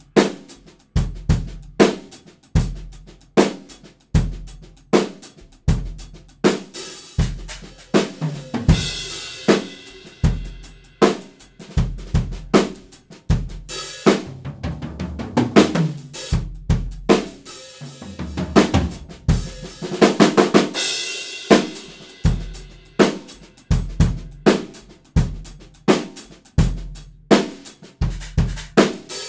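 Dixon Fuse Maple drum kit played in a steady groove: kick drum, snare and toms under Sabian cymbals. Cymbal crashes ring out about a third of the way in and again about two thirds in, with a short break in the playing near the middle.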